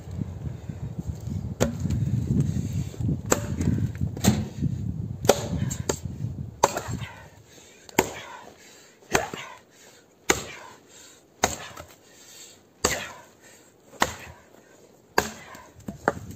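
Bellota axe chopping into a green pine log: about a dozen sharp blows, falling steadily about one a second in the second half. A low rumble sits under the first half.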